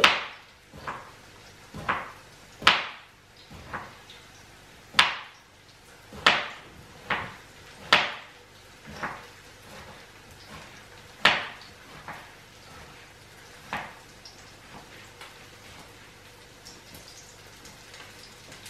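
Kitchen knife slicing eggplant and knocking on a cutting board: sharp, irregular knocks about one a second, dying away after about fourteen seconds into a few faint taps.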